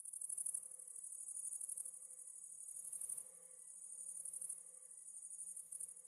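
Crickets chirping continuously: a dense, high-pitched pulsing trill that swells and eases every second or two.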